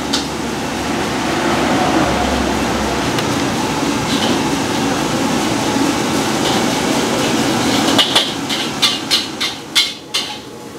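Wok cooking: a gas burner's steady roar, then from about eight seconds in, a metal spatula striking the wok about three times a second.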